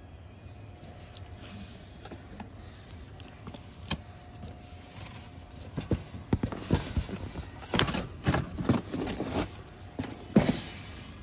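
Cardboard grill-accessory box being pulled from a metal store shelf and handled: a run of irregular knocks, taps and scrapes, with the loudest knock near the end, over a faint steady store hum.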